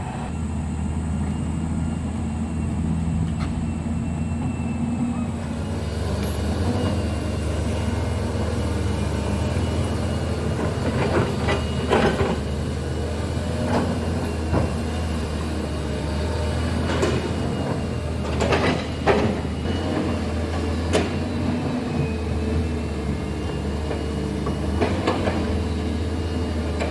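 Caterpillar 320D excavator's six-cylinder diesel engine running steadily under work, with the noise picking up about five seconds in. Scattered sharp clanks and knocks come through from about ten seconds on.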